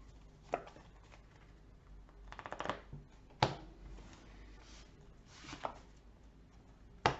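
Magic: The Gathering cards handled on a tabletop: a few separate sharp taps, and a brief quick flutter of card edges about two and a half seconds in.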